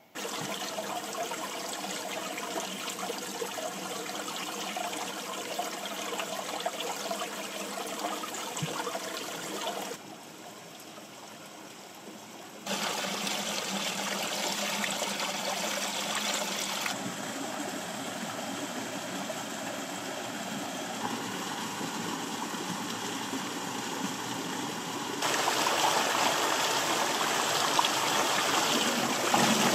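Running water of a mountain stream trickling and splashing over boulders, heard in several edited takes that change loudness abruptly. It drops quieter for a few seconds about ten seconds in, and is loudest near the end, where a small cascade pours between the rocks.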